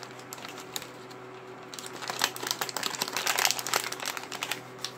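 Crinkly wrapper around a toy figure's accessory being handled and unwrapped by hand, crackling lightly at first and more busily from about two seconds in.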